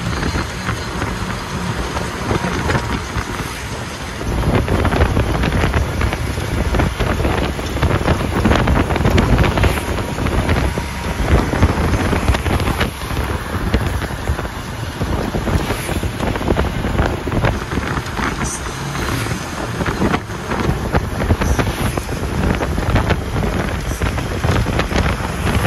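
Wind buffeting the microphone on a moving bus, over steady road and vehicle noise, getting louder about four seconds in.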